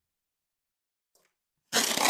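Latex balloon being handled: after near silence and a faint click, a sudden loud rasping, rubbery scraping starts near the end.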